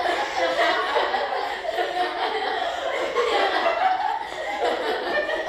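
A group of girls laughing together, several voices overlapping.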